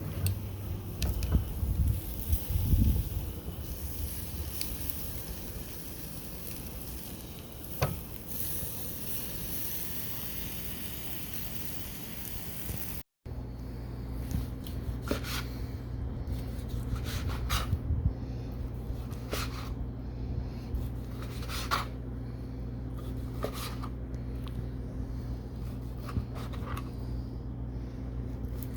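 Pork fillets sizzling on a small grill, a steady hiss with a few clicks and knocks. About halfway through it cuts off abruptly to a steady low hum with scattered sharp taps.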